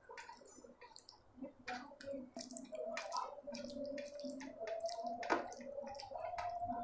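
Close-miked fingers mixing and squeezing sticky sabudana khichdi with curd on a steel plate: a run of wet, sticky clicks and squishes. A steady tone joins about halfway through.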